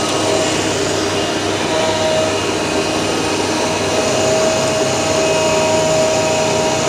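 Flatbed CNC cutting machine running: a steady blower-like rush with a held whining tone, as from the suction of its vacuum hold-down table, while the cutting head works on a PP hollow sheet.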